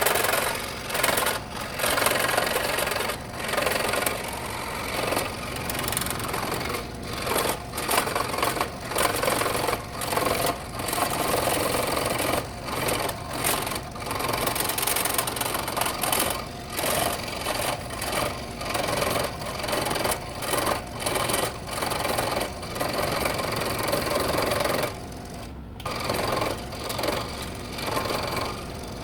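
Scroll saw running and cutting wood. Its reciprocating blade chatters through the piece with brief dips in level, and it stops for a moment about 25 seconds in.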